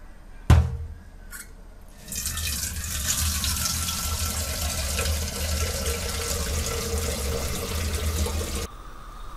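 A steel pot is set down in a stainless-steel sink with a sharp knock about half a second in, then tap water pours steadily into the pot, filling it, for about six and a half seconds and cuts off near the end.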